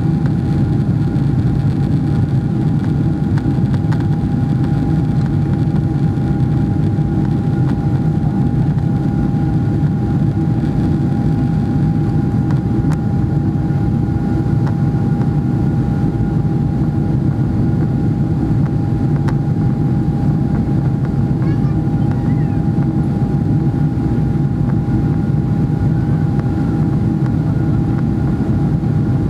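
Steady engine and airflow noise of a Boeing 777-300ER's GE90 engines heard inside the cabin: an even low rumble with a constant high tone running through it.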